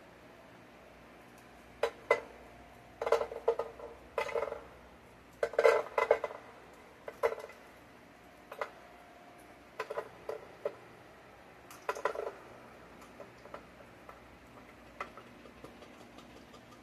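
Glass jar and utensil clinking and knocking against a saucepan: irregular clusters of clinks with a short ring, busiest in the first half and thinning to faint ticks near the end.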